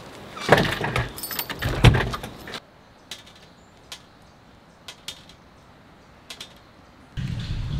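Rattling and clinking handling noises as a door is opened and someone steps out, followed by a quieter stretch where a few single drops of drizzle tick onto wet, puddled ground. A louder low rumbling noise comes in near the end.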